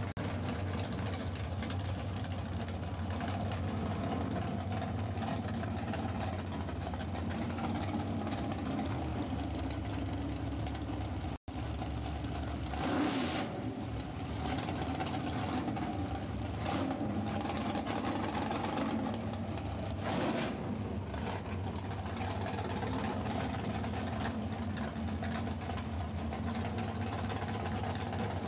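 Naturally aspirated 598-cubic-inch Ford big-block V8 of a Pro Stock drag car idling, with a few short surges of louder noise.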